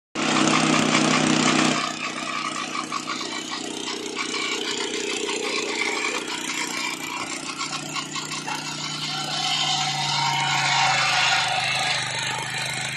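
Lucas swing-blade sawmill's engine running and its circular blade sawing through a hardwood log. It is loudest for the first two seconds, then drops to a steadier level with a rasping cut noise, swelling again near the end.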